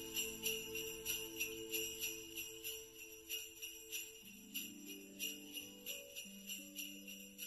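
Jingle bells shaken in a steady beat, about three shakes a second, over soft held notes of a Christmas music track; a new low melody line comes in about four seconds in.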